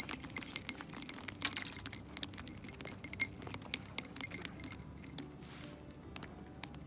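Quick, sharp metallic clinks and ticks from fishing tackle as a caught mackerel on the line is handled and unhooked, several a second, stopping about four and a half seconds in.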